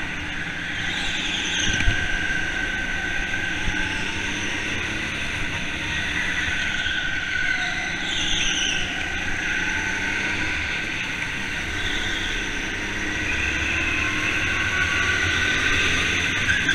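Racing go-karts running on an indoor track, with high whining tones that rise and fall as they go.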